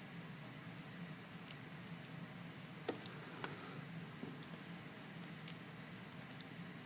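Faint, irregular metallic clicks of a lock pick working the pins inside a stainless-steel padlock, about five in all, over a steady low hum.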